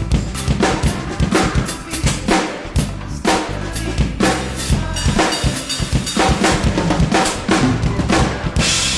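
Drum kit played in a busy groove, with kick, snare and cymbal hits coming several times a second over held low bass notes that change in steps.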